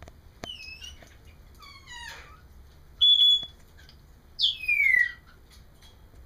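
African grey parrot whistling a string of calls: a few short sliding whistles, then a loud steady beep-like whistle about three seconds in, and a loud falling whistle near the end.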